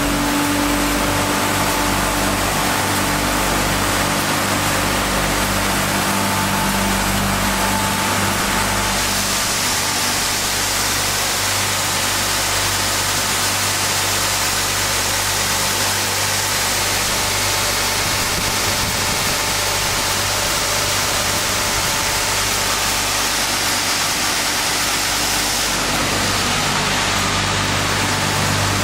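Sanding machine running steadily on a wooden core board, a loud even hiss over a low mechanical hum. The high hiss gets brighter about nine seconds in and eases back near the end.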